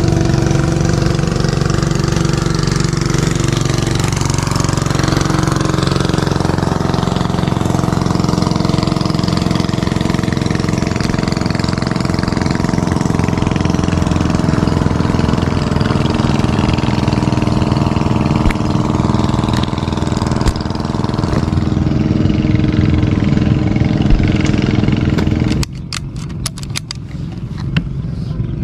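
A small engine running steadily at an even pitch. Near the end the sound drops off sharply, and a few sharp clicks follow.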